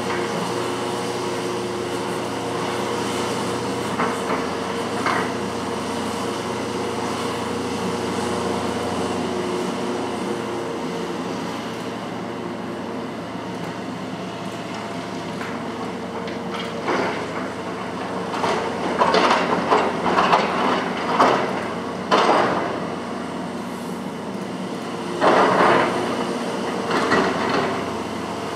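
Hitachi ZX470LCH-3 crawler excavator's diesel engine running with a steady drone. From about halfway through come loud, irregular clattering bursts, several close together and then two more near the end.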